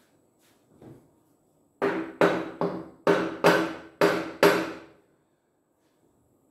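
Seven sharp knocks, about two a second, as a hammer is driven handle-first down onto a part in a cylinder of a Lister diesel engine's cast-iron block, each knock followed by a short metallic ring. A fainter knock comes just before them.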